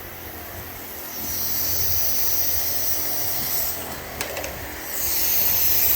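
A shop tool running with a high hissing whine in two runs, the first about two and a half seconds long and the second shorter near the end, with a few light clicks between them.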